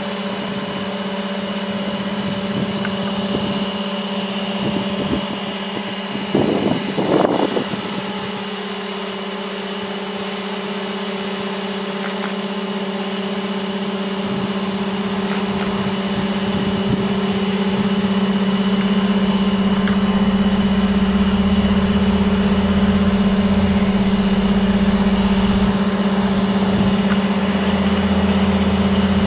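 Truck-mounted crane's engine running steadily while holding a suspended load. A short louder noise comes about seven seconds in, and the engine grows louder with a deeper hum from a little past halfway.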